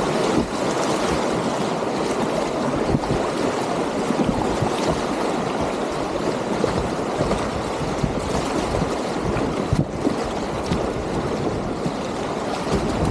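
Whitewater rapids rushing steadily around a kayak on the Divoká Orlice river, running at about 12 cubic metres a second.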